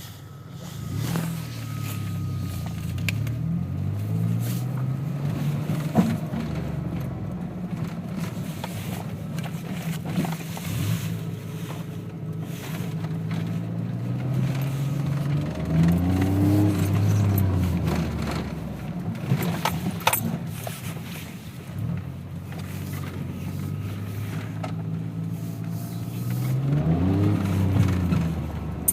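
A car engine running, its pitch rising and falling several times as it is revved or driven. A few sharp clicks or knocks come through along the way.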